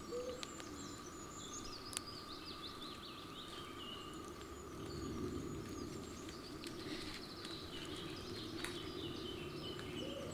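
Faint birdsong: several small birds chirping and trilling over a soft, even background of outdoor noise.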